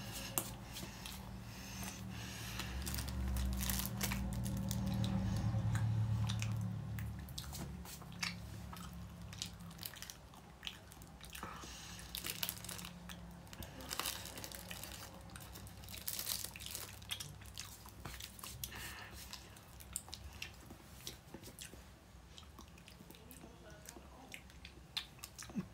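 Close-up chewing of a strawberry Swiss roll: wet mouth smacks and many scattered sharp clicks. A low hum rises for a few seconds early on and then fades.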